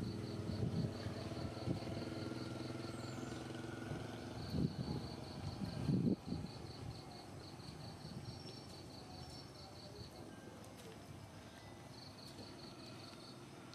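Insect chirping: a rapid high pulsed trill that breaks off and starts again, over a low hum with a couple of louder bursts that fades out about halfway through.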